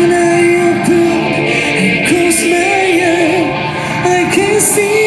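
Live rock band playing, with electric guitars, bass and drums under a singer's voice carrying a wavering melody line.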